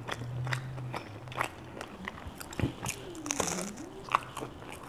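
Close-miked chewing of a baked garlic-knot bread ring with a crispy crust, with a series of short crunches as it is bitten and chewed.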